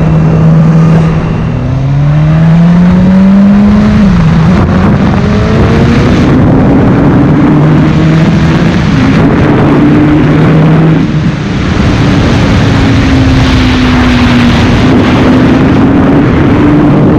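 Suzuki sportbike engine running under way at speed, with heavy wind noise on the microphone. The engine note climbs as the bike accelerates, drops sharply once about four seconds in at an upshift, then rises slowly and holds.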